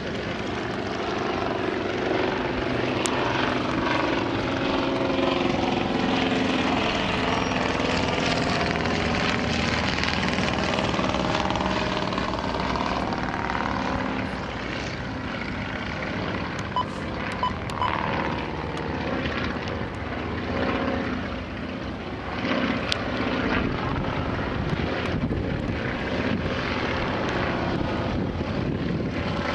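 Propeller engines of several World War One replica biplanes running overhead, overlapping and gliding up and down in pitch as the aircraft manoeuvre and pass.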